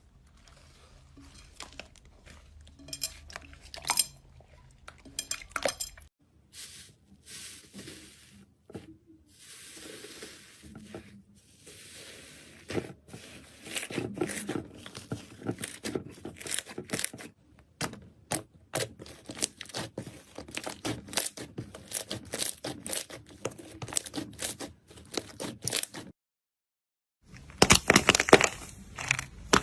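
Slime being squeezed and worked by hand, making dense runs of sharp clicks, pops and crackles. The sound drops out for about a second near the end, then resumes louder.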